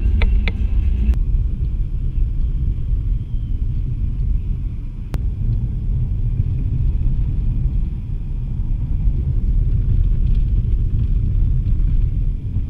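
Steady low rumble of road and wind noise inside a car cabin driving on a snowy highway, with a few sharp clicks about a second in and another about five seconds in.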